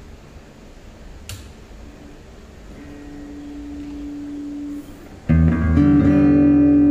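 Acoustic guitar played through a Vox Pathfinder 10 guitar amplifier. After a click and a faint steady tone, a chord is strummed about five seconds in and rings out loudly: the amp, repaired and converted to 220 V, is working.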